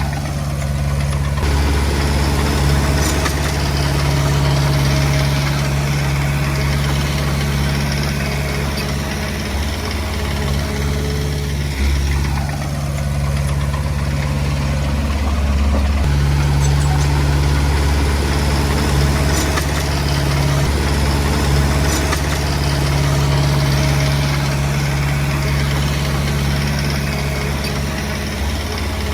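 Diesel engine of a Komatsu D20P bulldozer running steadily, its note shifting briefly a couple of times midway.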